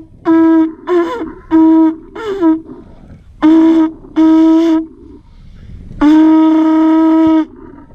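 Conch shell blown as a horn: about seven blasts on one steady low note, mostly short, two of them wavering and breaking in pitch, then a longer held blast of about a second and a half near the end.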